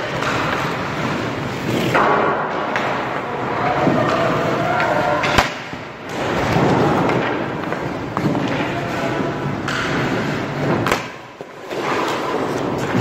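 Ice hockey skate blades scraping and stopping on the ice, with one sharp crack of a stick hitting a puck a little past five seconds in.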